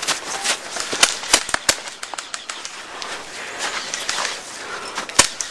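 Airsoft guns firing single shots: three sharp cracks in quick succession about a second in and a louder one near the end, over a steady rustling background.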